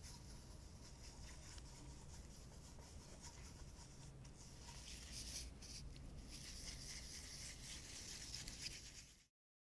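Faint scratchy rubbing of a glue applicator being stroked over the wooden face of a table tennis blade and then over the sponge of a rubber sheet. The rubbing grows louder and busier about halfway through and stops abruptly just before the end.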